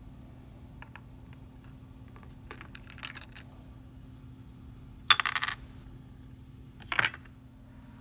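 Tiny plastic toy dishes and a small plastic dish rack clicking and clattering against each other and the box floor, with a few faint clicks, then three short rattling bursts about two seconds apart, the middle one loudest.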